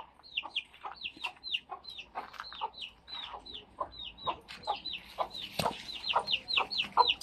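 Backyard chickens calling: a steady run of short, high, falling notes, several a second, growing louder and quicker near the end.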